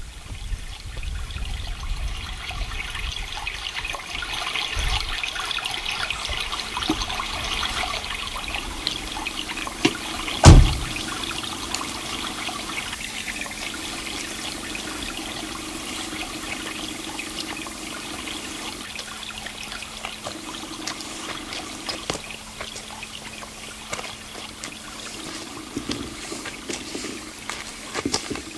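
Water trickling steadily, with one loud thump about ten seconds in.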